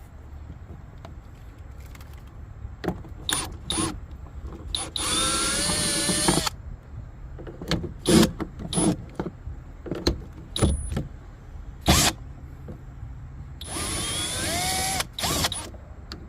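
Power drill with a socket backing out the 10mm bolt in a truck's door handle: two runs of about a second and a half each, about five and fourteen seconds in, the motor whine wavering in pitch. Sharp clicks and knocks of the tool and bolt come between the runs.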